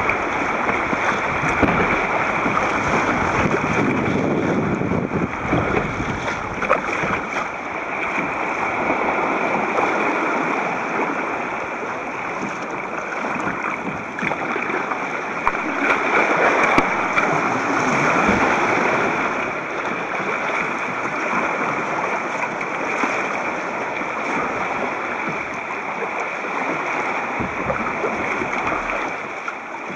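Choppy sea water sloshing and splashing around a kayak's bow, with waves washing over nearby rocks, heard through a camcorder's waterproof housing. A steady rushing that swells a little about halfway through.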